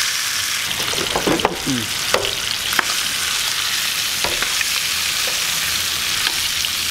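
Trout fillets frying in butter in a pan on a camp stove: a steady sizzling hiss, with a few light clicks early on.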